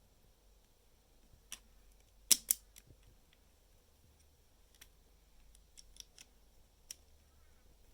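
Hard plastic Lego Technic parts clicking and tapping as an axle is pushed through a gear: scattered sharp clicks, the loudest pair about two seconds in, then a few lighter ticks.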